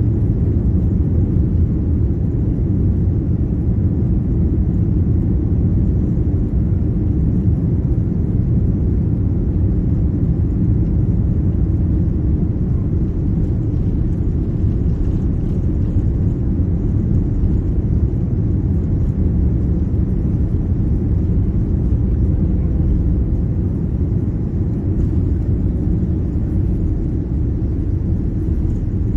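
A steady low rumble inside a jet airliner's cabin as it moves along the runway for takeoff: engine noise mixed with the rumble of the plane rolling on the ground.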